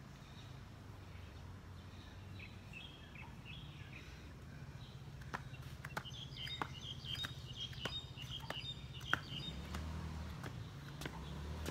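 Small birds chirping, more busily from about halfway through, over a steady low background rumble, with scattered sharp taps and clicks in the second half.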